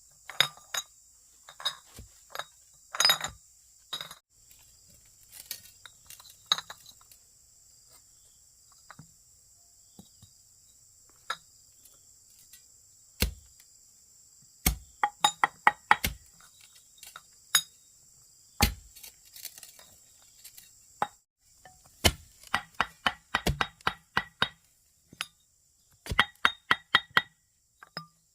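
Irregular sharp clinks and knocks of hard objects, a few heavier, with quick runs of light ringing taps in the last few seconds, over a faint steady high insect drone.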